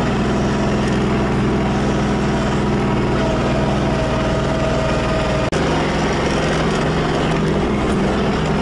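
Tractor engine running steadily under way, with a steady whine above the engine note for the first five seconds. The sound cuts out for an instant about five and a half seconds in, and the engine note is slightly different after it.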